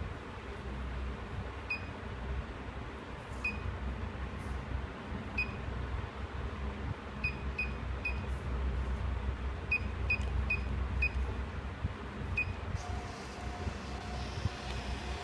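Short high beeps from a handheld petrol pump billing machine as its keypad keys are pressed, about a dozen at uneven intervals, some in quick runs of three or four. Near the end its built-in 2-inch receipt printer starts up with a steady whirring buzz as the bill prints.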